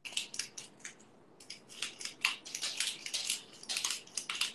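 Pepper mill being twisted, grinding peppercorns: a quick run of dry, crackly crunches, with a brief pause about a second in.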